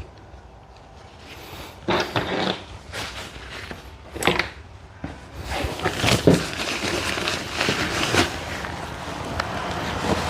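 Rummaging through camping gear: irregular knocks, thumps and rustling as items are shifted about, sparse at first and busier and continual in the second half.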